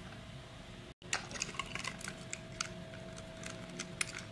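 Small plastic clicks and taps as a Takara Tomy Plarail EF510 toy locomotive is handled and its plastic body shell is pried off the motor chassis, with a brief cutout about a second in.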